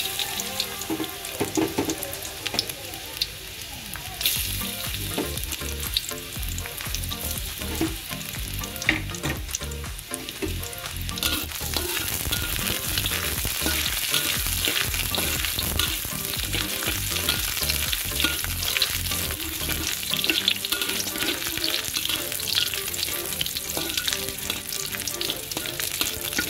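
Chopped garlic sizzling in hot oil in a steel wok, with many small clicks and scrapes from a metal spatula stirring it against the pan.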